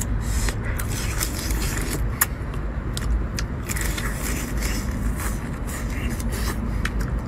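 Swimming crab's shell being cracked and pulled apart by hand, an irregular string of sharp cracks and crackles over a steady low rumble.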